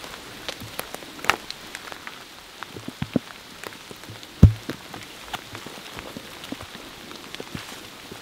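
Rain falling, with many irregular drops striking close by as sharp taps over a faint steady hiss, and one heavier thud about four and a half seconds in.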